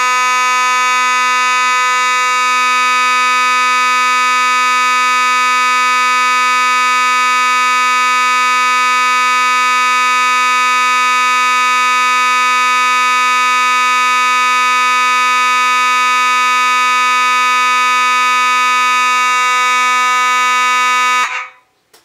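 Faraday (FOS) 6120 fire alarm horn sounding continuously: one steady, unbroken pitched tone that cuts off suddenly near the end. Its horn mechanism is the same as in the Simplex 6022.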